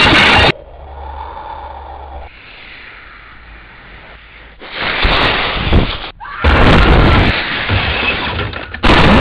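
Lo-fi rumbling and crashing effects for a volcanic eruption and earthquake: loud noisy blasts, one right at the start, one about five seconds in and a longer one from about six and a half seconds, with a quieter stretch of faint hum between.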